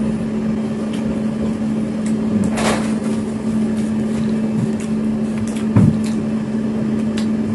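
A steady low hum, with a short scrape or rustle about two and a half seconds in and a single thump near six seconds.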